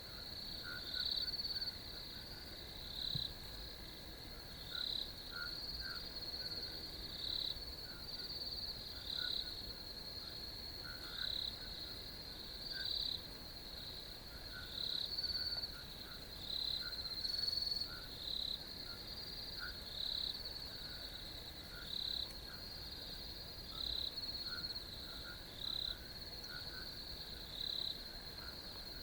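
Chorus of crickets at night: a steady high trill with louder chirps repeating every second or two, and fainter, lower chirps from other calling insects or frogs.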